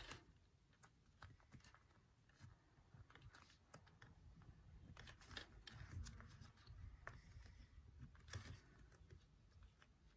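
Faint, irregular clicks and light rustling of small plastic sewing clips being opened and snapped onto a folded fabric strap.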